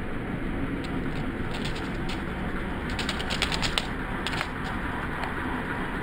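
A cicada fluttering its wings against a wooden deck as a cat bats at it, in several short bursts of rapid clicking buzz over steady outdoor background noise.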